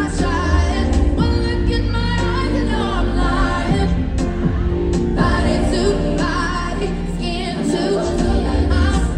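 Live R&B song: a woman singing into a microphone over a backing track with a strong deep bass, amplified through an arena PA and heard from the audience.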